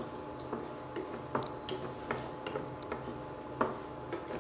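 Chana dal and urad dal roasting in butter in a pan while being stirred, giving irregular light clicks and taps, about one or two a second, over a faint steady hum.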